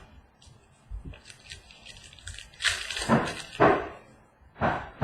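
Trading cards and their packaging being handled: a click and a soft thud, then a cluster of rustling and sliding sounds about two and a half seconds in, and another short rustle near the end.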